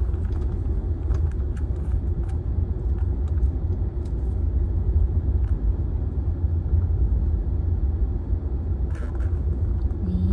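Car driving along a concrete road, heard from inside the cabin: a steady low rumble of engine and tyres.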